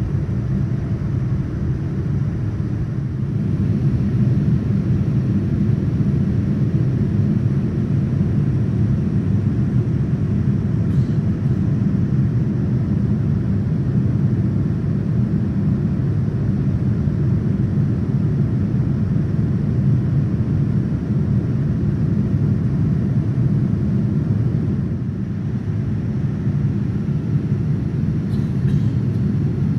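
Steady low rumble of engine and airflow noise inside the cabin of a Boeing 787-9, heard from a window seat while the airliner climbs away after takeoff. It gets a little louder a few seconds in.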